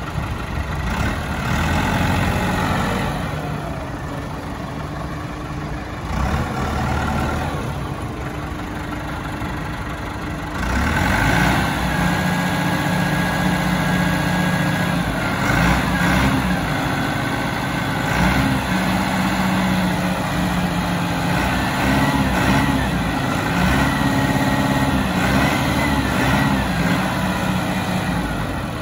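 1999 Case 4WD tractor's diesel engine running, while its front loader arms are raised and lowered. The engine note steps up and gets louder about ten seconds in, then rises and falls as the loader works.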